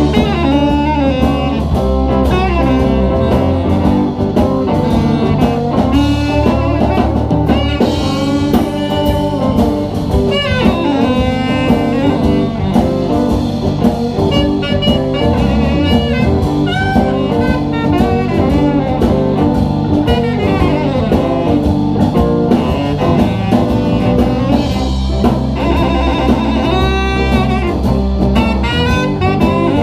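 A live blues band playing an instrumental break: a drum kit and a bass line under a melodic lead instrument, with no singing.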